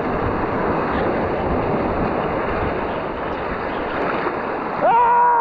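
River rapids rushing: a steady, loud wash of water noise, with wind rumbling on the microphone. Near the end a loud, high, rising-then-falling call cuts in briefly.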